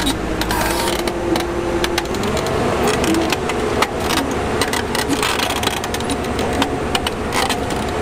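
Heavy-equipment diesel engine running under load, its pitch stepping up about two seconds in and then holding steady, with frequent sharp clicks and knocks over it.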